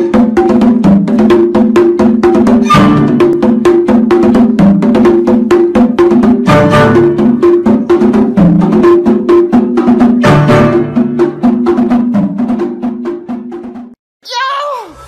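Background music: a fast tune of rapid, short, struck notes over a repeating low pattern. It stops about a second before the end, followed by a brief falling sound.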